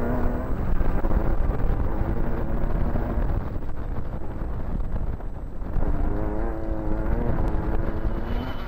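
Off-road racing special's engine heard from inside the cockpit at speed over a dirt track, over a heavy rumble of chassis and road noise. The engine note is clear at first, sinks into the rumble in the middle and climbs again from about six seconds in.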